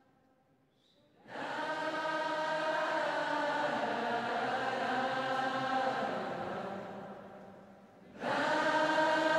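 Background music of sustained chanted, choir-like voices. It swells in about a second in, fades away, and swells in again near the end.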